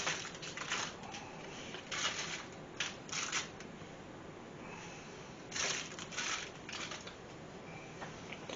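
Brown sugar being scooped and spread onto a ham: short gritty scraping and rustling strokes in a few clusters, about seven in all.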